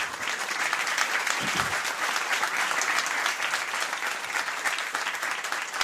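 Audience applauding, a dense steady clapping throughout, with a brief voice from the crowd about one and a half seconds in.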